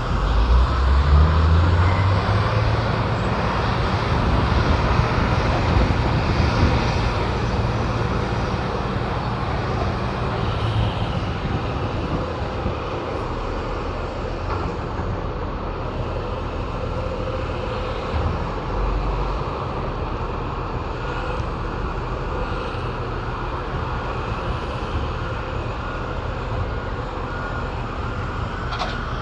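Heavy diesel construction machinery running, a continuous engine drone. The low rumble is heavier for about the first ten seconds, then eases to a steadier level.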